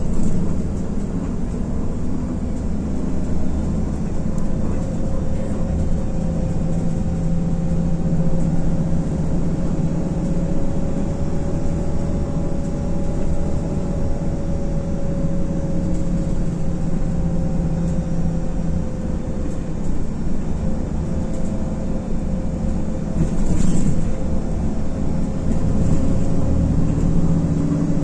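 Cabin sound of an IVECO Crossway LE bus under way, its Cursor 9 diesel engine and drivetrain giving a steady low rumble with a whine that rises and falls slowly in pitch. A short high hiss comes about 23 seconds in.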